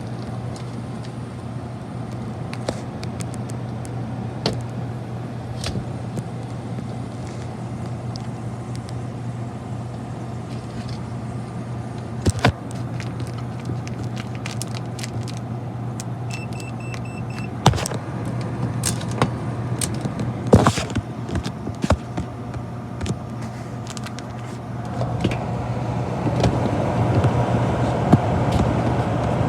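Air-conditioning system running under test: a steady low hum with scattered clicks and knocks from handling, growing louder and fuller about 25 seconds in.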